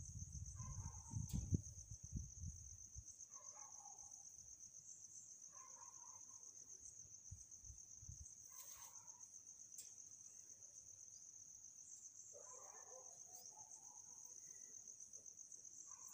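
Faint, steady high-pitched insect trill with a fine rapid pulse. A few soft knocks in the first few seconds come from the protractor and pen being handled on paper.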